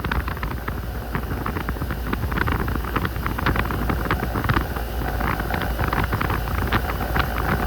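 Outdoor central air conditioner condenser running: a steady low hum under rushing, crackling air noise from its fan blowing across the microphone.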